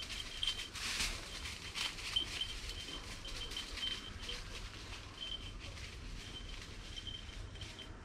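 Footsteps rustling through undergrowth, strongest in the first two or three seconds, while a thin, high peep at one unchanging pitch repeats over and over at uneven intervals.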